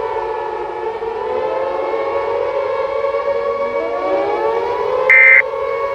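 Civil-defence sirens wailing, several overlapping steady tones with slow rising glides. About five seconds in, a short shrill electronic burst cuts in: the first of the EAS end-of-message data bursts.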